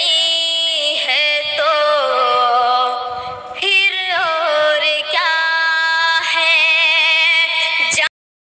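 A boy's high voice singing a naat, an Urdu devotional song, with long held notes that waver with vibrato and a short break about three seconds in. The singing cuts off abruptly near the end.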